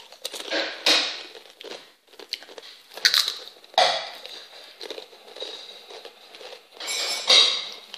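Crisp potato chips being crunched and chewed close to the microphone: a handful of loud, irregular crunches with quieter chewing between them.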